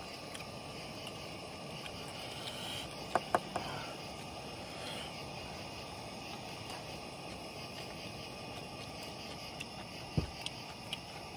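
Steady night chorus of crickets, with a couple of sharp clicks about three seconds in and a short low knock near the end.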